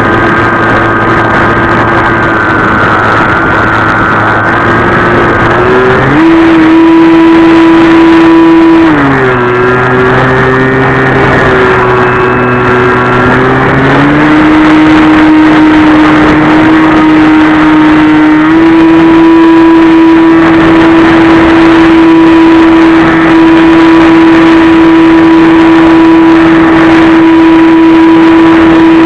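The Easy Star II's electric motor and pusher propeller drone steadily, with a rush of air. The pitch steps with the throttle: it rises about six seconds in, drops around nine seconds, climbs again around fourteen seconds and holds steady after that.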